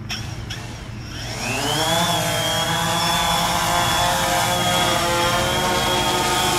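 DJI Phantom 3 Standard quadcopter's four motors and propellers spinning up, rising in pitch over about a second, then buzzing steadily with a high whine as the drone lifts off and hovers.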